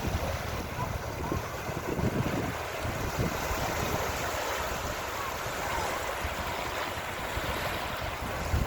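Gentle sea waves washing and splashing on a sandy beach, with wind buffeting the microphone in low, uneven gusts.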